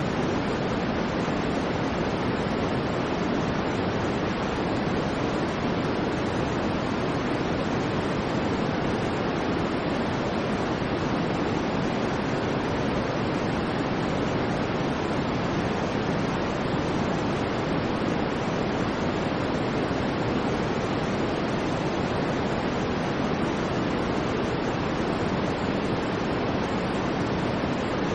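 Continuous noise track for sleep and focus: a steady, even hiss with no swells or breaks, weighted toward the low-middle range, so it sounds deeper and softer than flat white noise.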